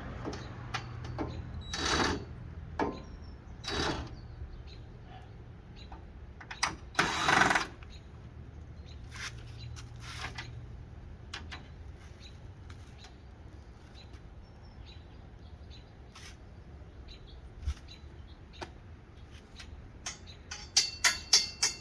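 Scattered clicks, knocks and rattles of hand work on the truck's light fittings, with a quick run of clicks near the end, over a low steady hum that fades out about halfway through.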